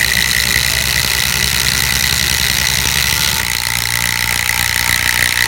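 Cordless Milwaukee M12 Fuel impact driver hammering steadily under heavy load, driving a long 5.5-inch LedgerLok structural screw into treated timber, with a high whine over the rapid impacts. The sound shifts slightly a little past halfway.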